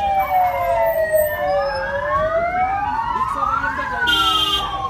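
Several vehicle sirens wailing at once, each sliding slowly up and down in pitch out of step with the others. A short horn blast sounds near the end.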